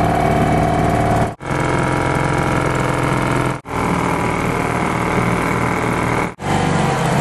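Vintage British Seagull single-cylinder two-stroke outboard running steadily, driving a small inflatable dinghy along. The running sound is broken three times by brief silences.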